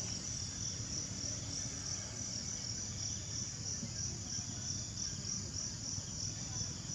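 Insects chirring in a steady, high-pitched pulsing trill that does not let up.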